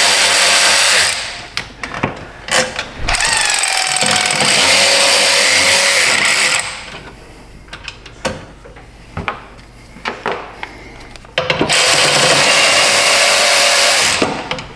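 Handheld power tool running in three long bursts, the middle one about three and a half seconds, with clicks and rattles of handling between them: fasteners being run out to free the PCM from its bracket.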